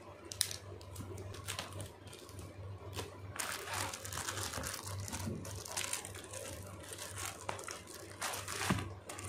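Metallic foil gift-wrapping paper crinkling in irregular bursts as it is handled and folded around a box, with a short rip of adhesive tape near the start.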